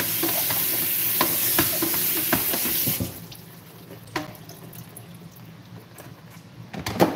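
Tap water running onto a plastic colander in a stainless steel sink while hands scrub it, with small clicks of plastic; the water stops suddenly about three seconds in. After that come a few sharp knocks as the wet plastic colander is handled and lifted.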